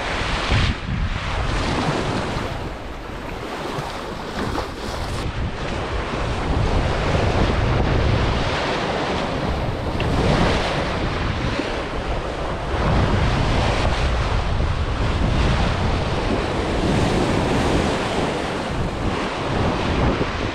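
Wind buffeting the microphone over the rush of water along a sailing yacht's hull as it moves at speed through waves. The low rumble swells and eases in surges as gusts and waves pass.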